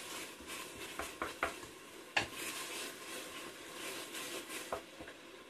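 Grated onion, garlic and spices sizzling in olive oil in a stainless-steel pressure cooker as they are stirred with a wooden spoon. There is a steady hiss, with several light knocks of the spoon against the pot.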